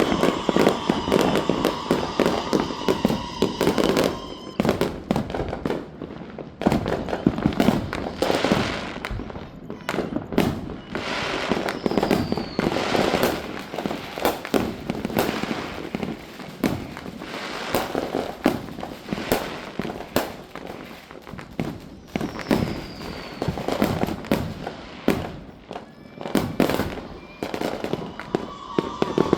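Fireworks going off one after another: a dense run of sharp bangs and crackling pops, with a short falling whistle twice.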